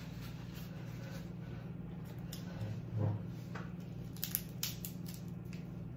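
Snow crab leg shell cracking and snapping as it is broken apart by hand, several sharp cracks over the last two seconds, over a steady low hum.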